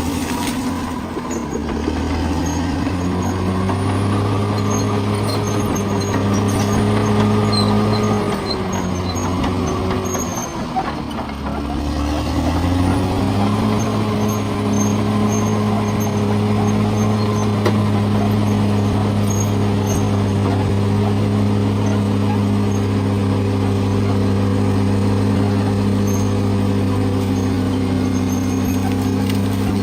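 Bulldozer's diesel engine running steadily under load; about nine seconds in its pitch drops, then it revs back up about three seconds later and holds steady again.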